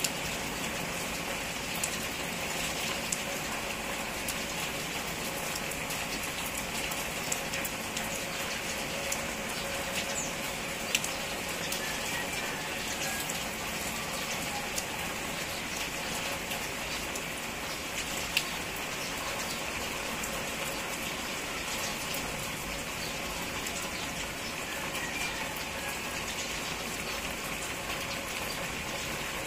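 Steady rain falling, with a few sharper drip ticks scattered through it.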